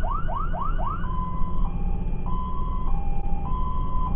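Fire engine's siren on an emergency run, switching about a second in from a fast yelp of rising chirps, about four a second, to a two-tone hi-lo that alternates about every half second. Underneath runs the low rumble of the moving truck.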